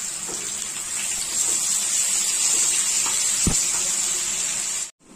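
Sliced onions and fried potato wedges sizzling in hot oil in a frying pan, a steady hiss as they are stirred with a metal spatula, with a single light knock about three and a half seconds in. The sizzle cuts off suddenly near the end.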